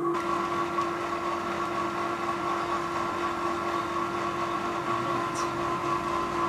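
Steady electric-motor whine at a constant pitch over a low rumble, running without a break.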